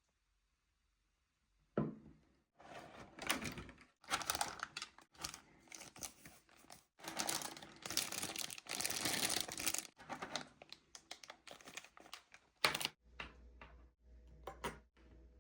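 Packaging of a model kit being handled: crinkling and tearing in irregular bursts, with a few knocks, starting about two seconds in.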